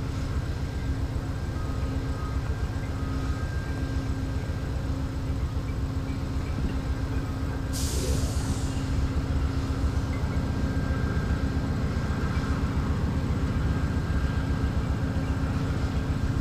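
Amtrak GE Genesis diesel locomotive idling, a steady low rumble with a constant hum. About eight seconds in, a sudden hiss of air, fading out over about a second.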